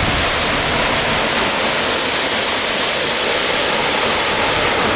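Rushing water of a waterfall and its rocky mountain stream, a steady loud hiss with no change.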